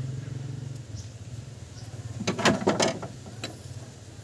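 A short run of sharp metallic clicks and clinks about two seconds in, as hand tools knock against the carburetor and engine parts of a stripped-down Nissan A12 engine, over a steady low hum.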